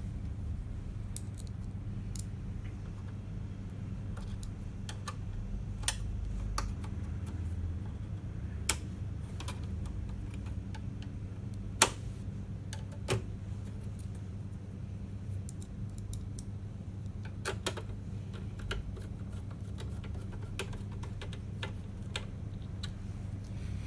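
Scattered small metal clicks and taps as screws are driven back in by hand to hold the UPS battery tray, with the loudest click about halfway through. A steady low hum runs underneath.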